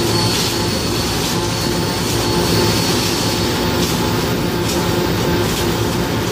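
Electric arc welding on steel plate: a steady, dense crackle from the arc, with faint steady humming tones underneath.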